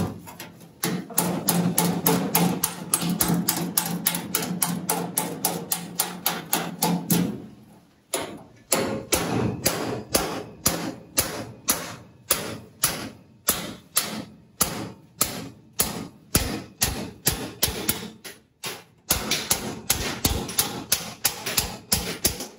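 Hammer striking a steel chisel (sinsil) in a long run of quick, evenly spaced metallic taps, punching a bead line into sheet metal. The blows come fast and close together at first, pause briefly about eight seconds in, then go on at a steady two to three strikes a second.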